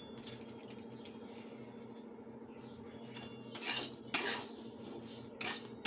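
Metal spatula scraping and knocking against an aluminium kadai as dry semolina is stirred, a few short strokes with the loudest about four seconds in. A steady high-pitched whine runs underneath.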